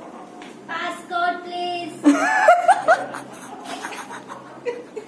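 Voices laughing and exclaiming without clear words, the loudest part a wavering, rising-and-falling exclamation about two seconds in.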